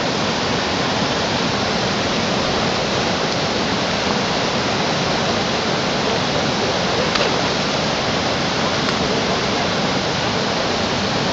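Steady rush of white water: river rapids pouring over rock.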